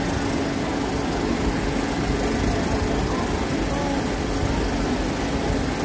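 Steady city street background: a constant low engine-like hum with a steady drone and faint distant voices, with no sudden sounds.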